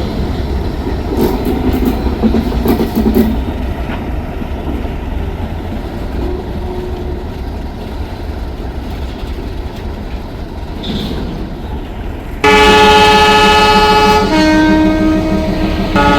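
A train running with a steady low rumble, then an Indian Railways locomotive's multi-tone horn starts suddenly and loudly about twelve seconds in, changing to a different note about two seconds later.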